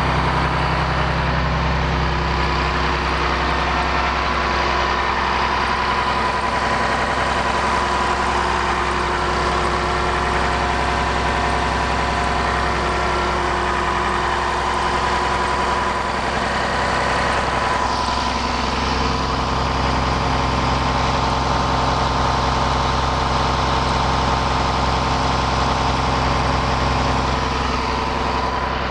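Cummins 8.3-litre inline-six turbo diesel engine of a school bus idling loudly and steadily, heard up close at the engine compartment.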